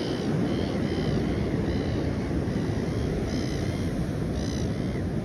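Steady rumble of surf breaking on the beach, mixed with wind on the microphone, with a bird giving several short high calls over it.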